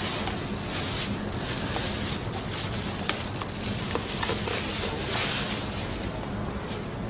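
Soft rustling of a cloth jacket as it is laid and tucked over a person lying in a hospital bed, with a few small clicks, over a steady low hum.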